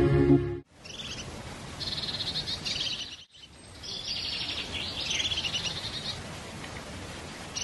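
Music stops abruptly, then small songbirds sing in the woodland: repeated high, rapid trilled phrases, with a brief break about three seconds in.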